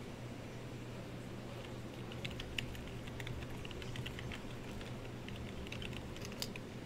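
Typing on a computer keyboard: a quick, irregular run of key clicks starting about two seconds in, over a low steady hum.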